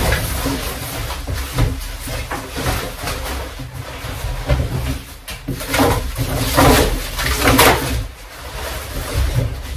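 Plastic wrapping and cardboard packaging rustling and crinkling as parts are lifted out of a box, with a few louder crinkles between about six and eight seconds in.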